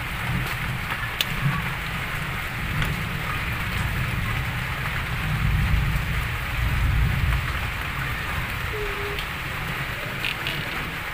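Steady rain falling, an even hiss, over a low, uneven rumble, with a few faint clicks.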